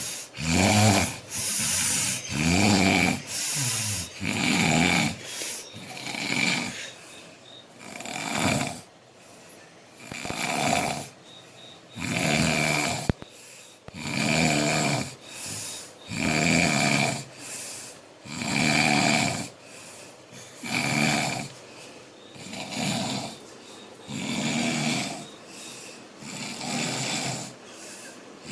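A man snoring loudly in deep breaths, one snore about every second at first, slowing to about one every two seconds.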